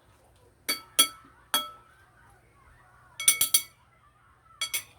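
Dishes and kitchenware clinking together: about nine sharp, ringing clinks in irregular groups, including a quick run of four near the middle.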